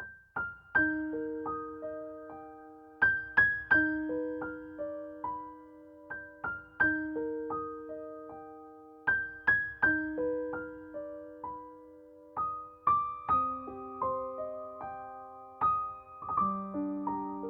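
Soft, lullaby-like solo piano music: single notes struck one after another, each ringing and fading, in a gentle phrase that repeats about every three seconds and shifts lower near the end.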